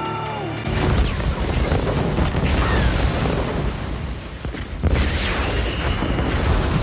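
Movie battle sound effects of a warship blowing up: a man's shout at the start, then a heavy explosion about a second in that rumbles on for several seconds, and a second blast near the five-second mark, with film score underneath.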